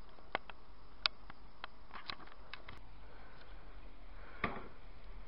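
Handling noise on a cheap camcorder's built-in microphone: scattered sharp clicks and taps as the camera is moved, with one louder knock about four and a half seconds in, over a steady low hum.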